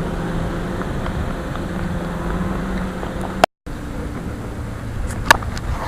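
Steady low rumble and hum of a moving vehicle, heard from inside. It cuts out briefly about halfway, and there is a sharp click near the end.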